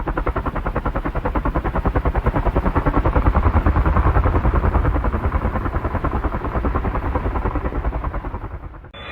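Helicopter passing by, its rotor making a fast, even chop that grows louder to a peak about a third of the way in and then fades away.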